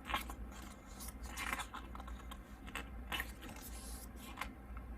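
Pages of a K-pop album photo book being turned and handled: a string of short, soft paper rustles and scrapes, irregularly spaced.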